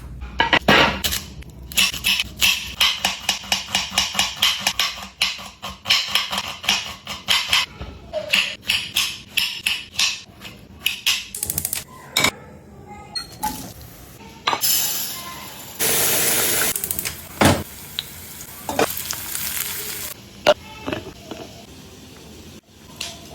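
Cooking sounds: rapid clinks and knocks of a utensil against a pan for the first ten seconds or so. Past the middle comes a few seconds of food sizzling in hot oil, then a few scattered knocks.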